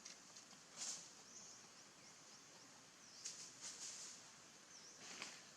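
Quiet outdoor ambience with a few short, faint, high-pitched chirps from small animals: one about a second in, several around three to four seconds in, and one near the end.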